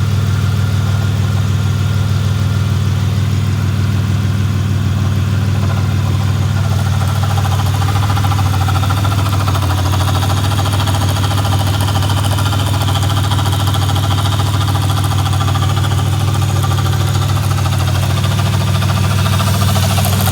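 2009 Chevy Impala's engine idling, a steady low hum with an unidentified noise that the owner cannot place.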